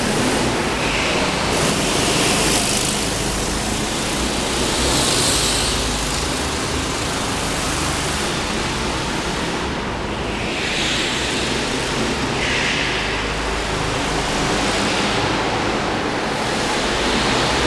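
Go-kart engines running on an indoor track, a continuous noisy drone that rises and falls as the karts go round, echoing in a large hall.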